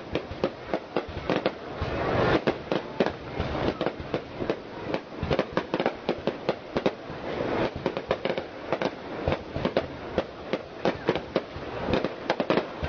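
Aerial fireworks going off in a dense, continuous barrage: a rapid stream of sharp bangs, several a second, over a steady crackle.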